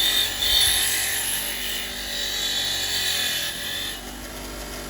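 A power tool's spinning wheel scouring rust off a steel spanner after a vinegar soak: a loud, rough, hissing grind that drops off somewhat near the end as the contact eases while the wheel keeps turning.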